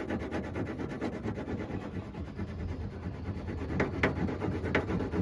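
Rapid back-and-forth scraping and rasping: the small tabs on an HEI ignition module are being sawn off against the sheet-metal lip of the inner fender. A few sharper clicks come near the end.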